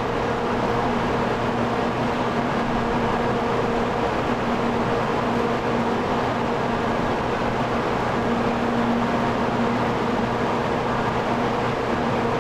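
Steady rumble and hiss of Shinkansen trains moving through the station, with a constant low hum underneath.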